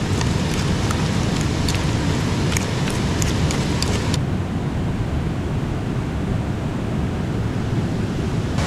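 Steady rushing of a river flowing over rocks, with scattered faint clicks during the first four seconds or so.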